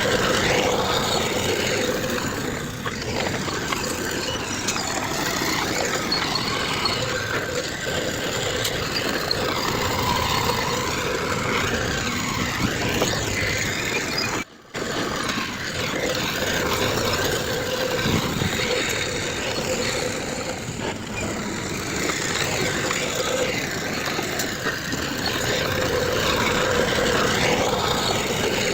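Heavy diesel construction machinery running steadily: bulldozer and dump truck engines working, with a steady drone. The sound cuts out briefly about halfway through, then carries on.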